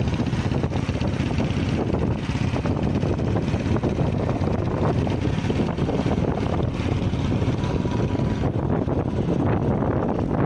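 Motorcycle engine running at riding speed, with heavy wind rushing over the microphone.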